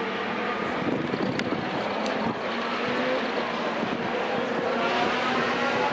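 Race car engines running on the circuit, heard at a distance as a steady drone of several overlapping engine notes that slowly rise and fall.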